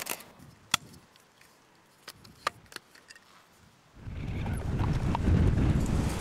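A few sharp clicks in a near-quiet stretch, then about four seconds in, wind buffeting the microphone with a loud low rumble.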